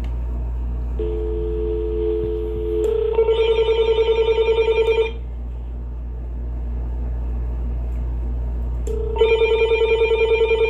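Uniden EXAI7980 900 MHz cordless phone ringing with an electronic warbling trill: two rings of about two seconds each, about four seconds apart, as an incoming call arrives. A short steady two-tone line tone comes through just before the first ring.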